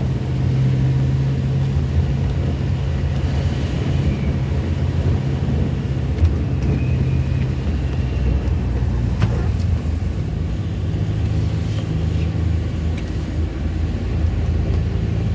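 A vehicle's engine running steadily under road noise, a low hum whose pitch shifts about ten seconds in.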